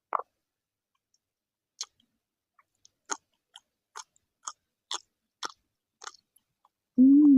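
Close-up mouth sounds of someone eating: short, wet chewing clicks, about two a second. Near the end comes a loud, short 'mmm' hum from the eater that falls in pitch.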